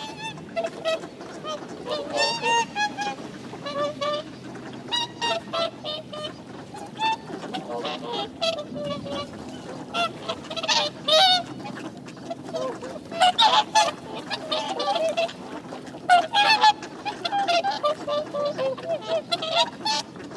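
A flock of whooper swans honking: many short, overlapping trumpeting calls throughout, growing louder and more crowded in the second half.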